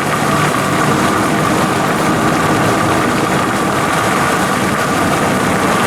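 Car engine running steadily, heard from inside the vehicle as one even, unbroken noise.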